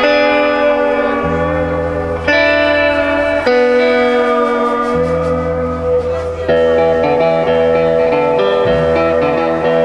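Live band playing an instrumental guitar passage: electric and acoustic-electric guitars ringing out sustained chords over low notes that change every one to two seconds, with no singing.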